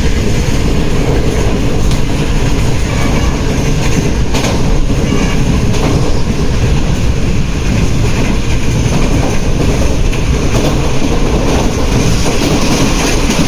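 Tezgam Express passenger train running at speed: loud, steady wheel and rail noise with clickety-clack from the track.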